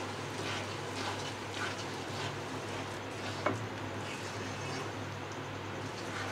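A spatula stirring and scraping through a pan of sesame seeds in hot jaggery syrup, making scattered light scrapes and clicks over a steady low hum.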